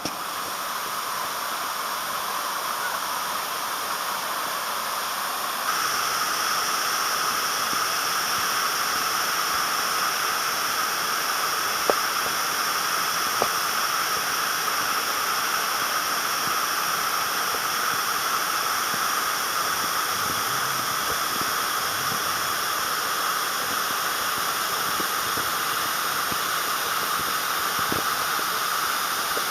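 Waterfall rushing: a steady hiss of falling water that steps up in loudness about six seconds in and then holds.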